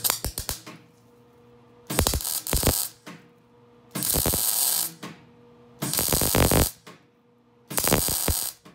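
Wire-feed welder laying stitch welds on the steel subframe connectors: five short bursts of crackling arc, each under a second, about two seconds apart.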